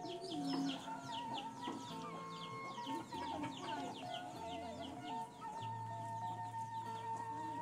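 Sundanese kecapi suling background music: a bamboo flute holding a wavering melody line over plucked zither notes. Chickens are clucking underneath, with a rapid run of short high chirps through the first half.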